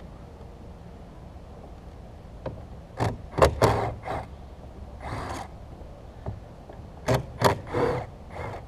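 A ratchet with a 10 mm socket working the side-mirror mounting bolts inside a car door: two groups of sharp clicks and knocks, about three seconds in and again about seven seconds in, with a short scraping rasp between them.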